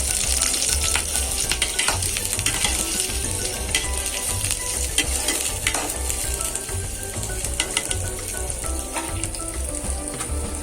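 Chopped onion sizzling in hot oil in a kadai, with a steady hiss and frequent small scrapes and clicks of a spatula stirring it.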